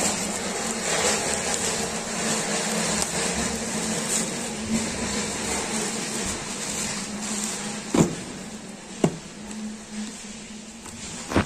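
Plastic courier mailer rustling and crinkling as it is torn open and a shoe box is pulled out of it, over a steady low hum. Three sharp knocks from the cardboard box being handled come in the second half.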